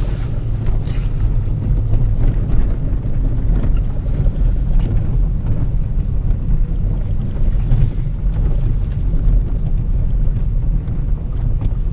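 Nissan Qashqai J10 driving over a rough, icy road on a test drive: a steady low road-and-tyre rumble with small rattles and knocks from the front end, the sign of the rattle and knocking still left after the anti-roll bar bushings were replaced.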